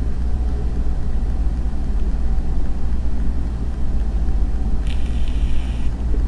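A steady low rumble with no words, and a brief higher-pitched buzzy tone lasting about a second near the end.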